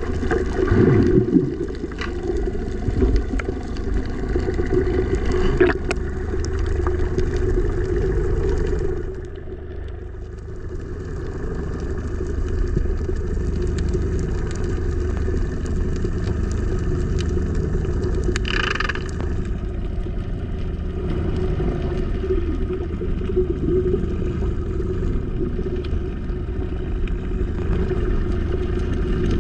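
Steady low drone of a motorboat engine heard through the water, muffled. Scattered clicks run through it, and there is a short hiss about 18 seconds in.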